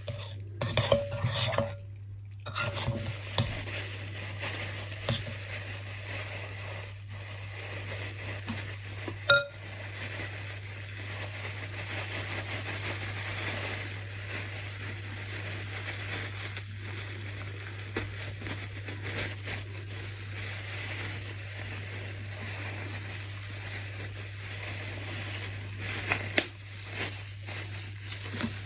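Flour being stirred into butter and sugar in a mixing bowl to make shortbread dough: continuous scraping and scuffing of the utensil against the bowl, with small irregular knocks and one sharp knock about nine seconds in.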